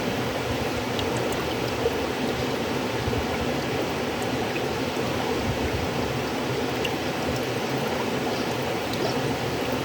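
River water flowing steadily, an even rushing sound with small splashes and ticks scattered through it.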